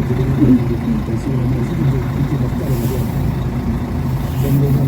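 A vehicle engine running steadily at idle, a constant low hum over a rumble.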